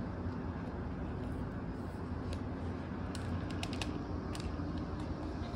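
Plastic buttons of a TV remote control clicking several times, mostly in a quick cluster just past the middle, over a steady low room hum.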